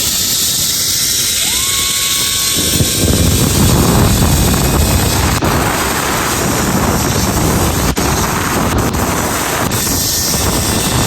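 Wind rushing over the microphone during a fast zip-line ride, with a faint whine from the trolley running along the steel cable.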